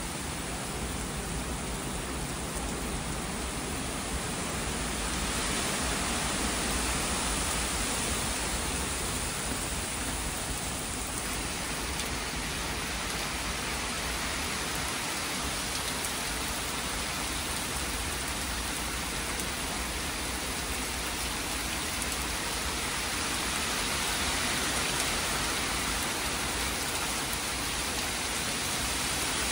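Heavy hurricane rain falling steadily through woodland trees, an even hiss of rain that grows a little heavier about five seconds in.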